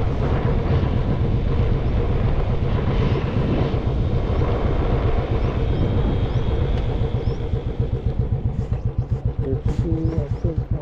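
Motorcycle engine running under way. About eight seconds in, the beat slows and the separate firing pulses come through as the bike eases off the road onto a gravel shoulder.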